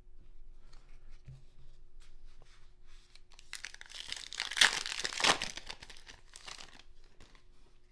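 Light clicks of trading cards being handled, then a trading-card pack wrapper torn open and crinkled. The tearing starts about three and a half seconds in and peaks twice around five seconds.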